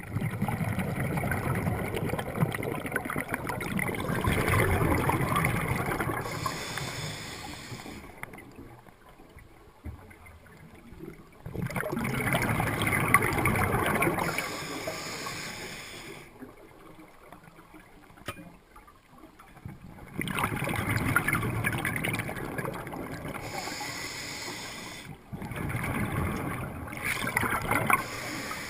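Water washing and sloshing in surges a few seconds long, with quieter gaps between them.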